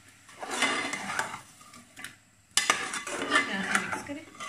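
A slotted metal spatula scrapes and stirs chicken pieces and ginger-garlic paste in an aluminium pot. It goes in two bouts, the second starting with a couple of sharp clinks against the pot. The chicken is being fried with the paste to cook off its smell.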